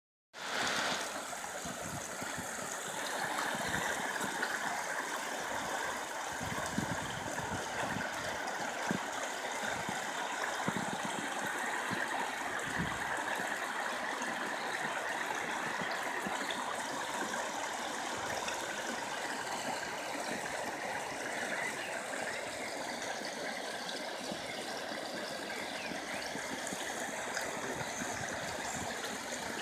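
Floodwater rushing steadily across a flooded street, churning into white water along one edge of the road.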